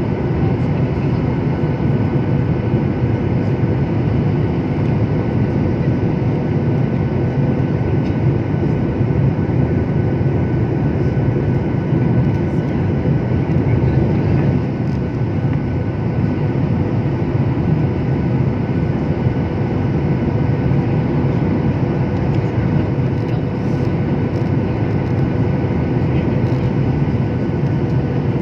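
Steady loud rush of jet-airliner cabin noise, engines and airflow, with faint steady whining tones above it, during final approach and landing.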